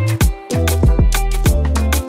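Upbeat background music with a quick drum beat over a bass line.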